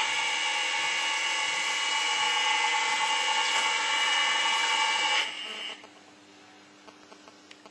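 Cookie dough-depositing machine running with a steady, high motor whine that cuts off suddenly about five seconds in.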